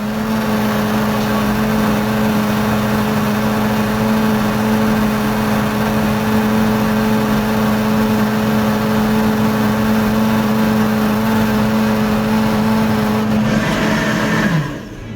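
Electric blender running at a steady high speed, blending fresh strawberries into a shake. Near the end it is switched off and its pitch falls as the motor winds down.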